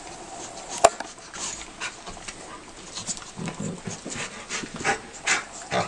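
A Rottweiler and a beagle play-fighting, with short breathy panting sounds coming faster and louder in the second half. A single sharp knock sounds about a second in.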